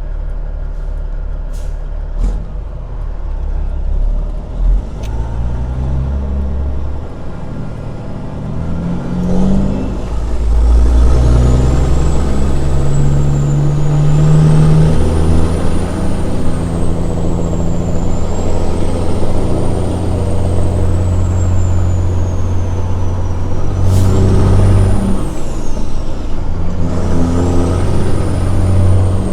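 Semi truck's diesel engine pulling away and working up through the gears, its pitch climbing and then dropping back at each shift and getting louder about ten seconds in. A high whine rises and falls above the engine.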